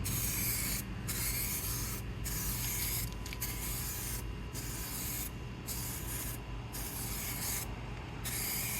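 Clear coat being sprayed onto a headlight lens in short passes: a hiss that starts and stops about eight times, each burst under a second long.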